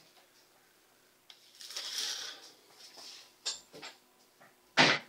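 Movement and handling noise: soft rustling, a few light clicks, then a single loud thump near the end as the man reaches toward the camera.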